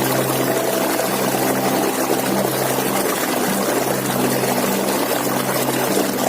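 Steady rush of a waterfall, an even noise of falling water, with a low steady hum of a few tones beneath it.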